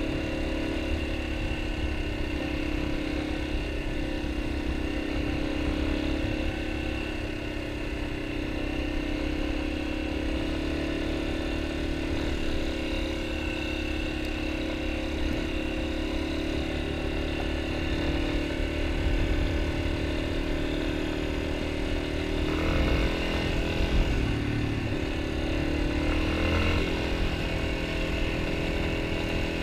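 Yamaha XT250's air-cooled single-cylinder four-stroke engine running at a steady pace under way, with a low rumble beneath it. About three quarters of the way through, the engine note drops and wavers for a few seconds, then rises and steadies again.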